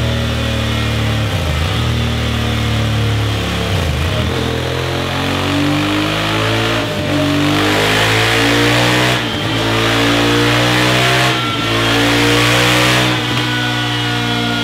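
Honda CRF1000L Africa Twin's parallel-twin engine revving through a Scorpion Serket Parallel full-system exhaust with its dB killer fitted, in a run on a rolling-road dyno. The note climbs in a series of pulls, each broken by a short dip every two to three seconds as it shifts up through the gears.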